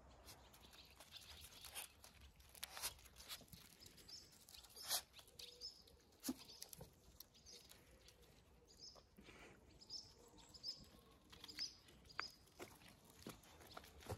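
Paws scuffling and crunching on loose gravel as puppies and a cat play-fight: soft, irregular clicks and scrapes of stones, fairly quiet.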